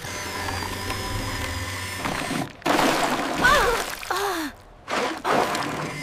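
Cartoon sound effects: a steady low hum for about two seconds, then loud rushing noise with a character's short vocal grunts and a falling groan.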